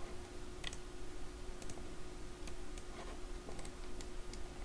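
Irregular clicking of a computer mouse and keyboard, about one or two clicks a second, over a steady low hum.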